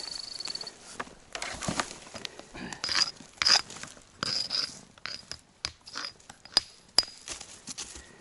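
A beep mat's high, pulsing beep stops just under a second in, signalling a magnetic rock such as magnetite beneath the sensor. Then come rustling and a rock hammer striking rock about ten times, each strike a sharp click with a brief metallic ring, the loudest around three and a half and seven seconds in.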